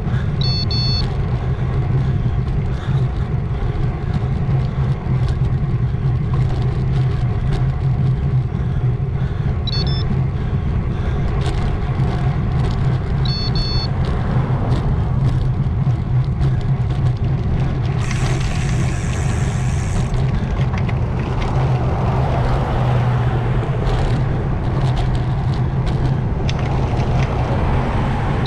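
Road-ride sound from a handlebar camera: a steady low hum of tyres, wind and nearby cars, with light ticks and a few brief high tones near the start and about ten and thirteen seconds in.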